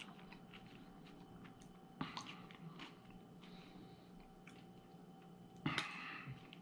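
Faint mouth sounds of biting into and chewing a deep-fried peach mango pie. There are a few soft crunches and smacks, a little louder about two seconds in and again near the end.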